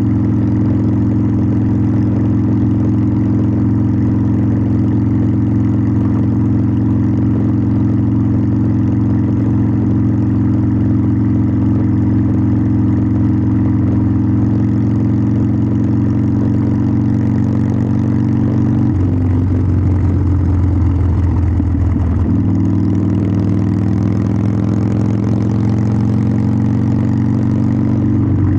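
Harley-Davidson Sportster 1200's air-cooled V-twin running through its exhaust, a loud, steady note. Past the middle the pitch eases down, the note changes for about three seconds, and it then settles steady again at a lower pitch.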